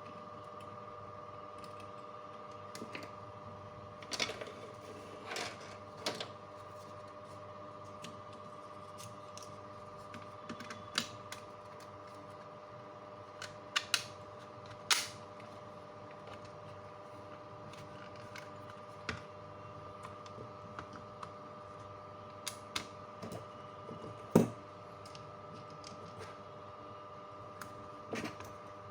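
Scattered sharp clicks and taps, irregular and a few seconds apart, over a steady electronic hum made of several held tones.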